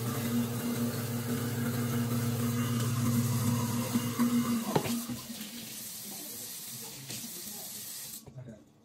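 Water running from a tap into a kitchen sink over a steady low hum. The hum stops with a sharp sound about halfway through, and the water shuts off near the end.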